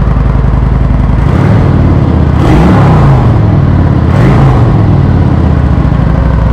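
2019 Kawasaki Vulcan 900 Classic's V-twin idling through its stock exhaust pipes with the baffles cut and drilled out (stage 1 debaffle). It is blipped twice, once about two and a half seconds in and again around four seconds, each rise in revs falling back to idle.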